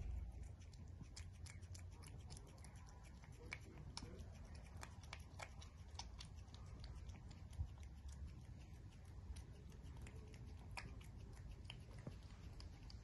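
A cat eating chunks of wet food from a bowl: quiet, quick, irregular wet clicks and smacks of chewing and licking, several a second.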